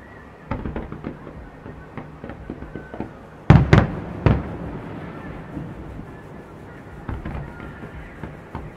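Aerial fireworks exploding: a crackle of bangs from about half a second in, the loudest booms a few seconds in, then scattered pops.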